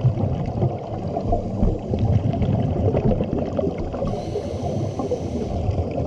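Muffled, continuous water churning and bubbling, picked up by a camera in an underwater housing. A faint high whine joins for a moment past the middle.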